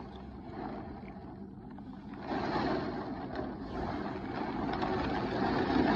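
Heavy rain pouring in strong, gusting storm wind, with wind rumble on the microphone; it grows louder about two seconds in.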